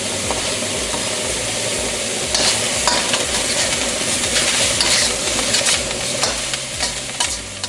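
Stir-fry sizzling in a hand-hammered carbon steel wok, with a metal wok spatula scraping and clattering against the pan as the food is tossed. The sizzle is steady, with the spatula's scraping strokes coming thick and fast from about two seconds in.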